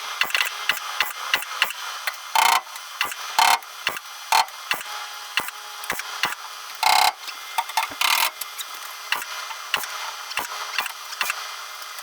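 Welding a sheet-metal patch panel in: a crackling arc in short stitches, with dense clicks and several louder bursts.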